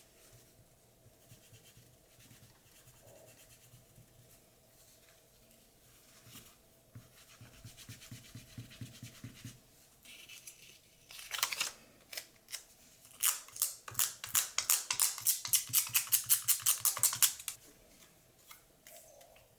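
Handling and rubbing at a small action camera's glass screen protector: faint fiddling at first, then a sharp scrape, then a fast run of repeated scrubbing strokes, about four or five a second, that stops near the end.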